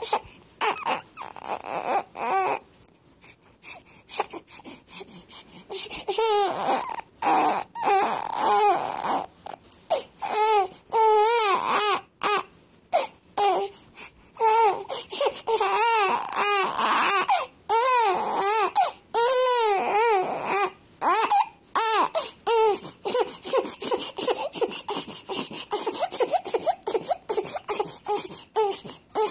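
Baby vocalizing in a long run of short, high-pitched cries and babbling sounds with brief gaps between them, sparse at first and busier from about six seconds in.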